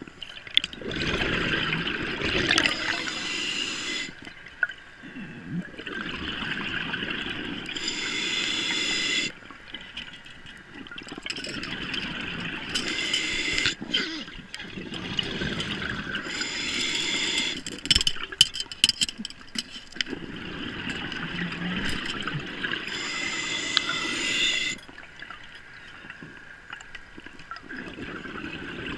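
Scuba diver breathing underwater: a regulator hiss and the rush of exhaled bubbles, one breath about every five seconds.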